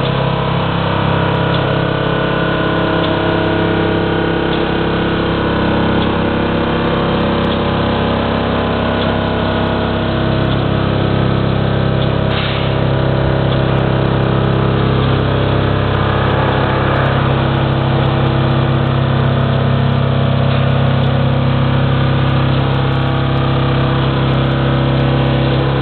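Vacuumatic Vicount 3 pin-and-blade paper counting machine running at speed as it counts through a stack of sheets: a steady, loud mechanical hum with several held tones, cutting off suddenly near the end as the count of 1,000 completes.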